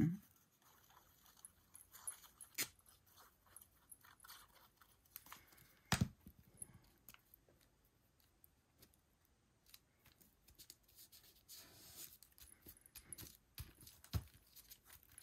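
Quiet paper handling and craft work on a table: faint rustling and small clicks, with a sharp knock about two and a half seconds in, a louder one about six seconds in, and a soft thump near the end.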